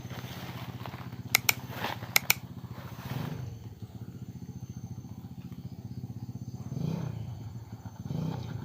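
A small engine running steadily at idle, with two pairs of sharp clicks about a second and a half and two seconds in.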